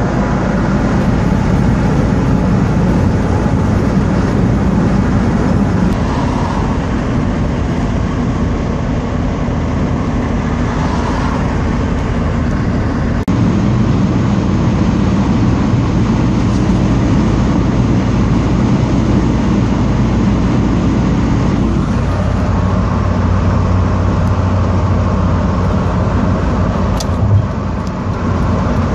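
Steady road noise heard from inside a car travelling at highway speed: tyre and wind noise over a low engine hum, with heavy trucks close by. There is a brief break about thirteen seconds in and a sharp click near the end.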